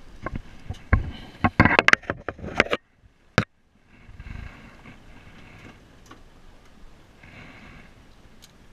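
Handling noise from a camera being moved and knocked about: a quick run of clicks, bumps and rustles, then a short drop to near silence with one more click, and after that only a faint, steady background.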